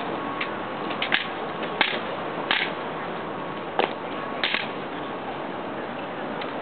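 Sharp slaps of drill rifles being handled during a rifle exhibition routine, about seven strokes spaced roughly a second apart, one of them doubled, over steady background noise.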